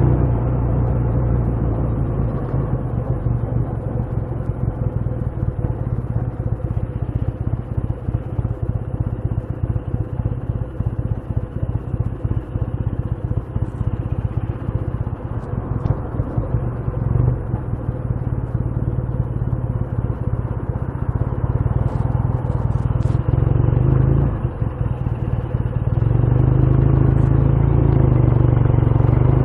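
Motorcycle engine running at low revs with a fast, uneven pulsing, then revving up louder as the bike pulls away over the last few seconds.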